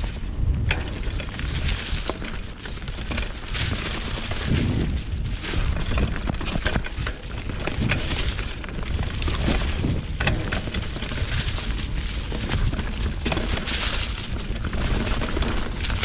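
2020 Specialized Pitch mountain bike rolling fast down a dirt singletrack covered in dry leaves: the tyres crunch through the leaves while the bike rattles and knocks over bumps, under a steady low rumble.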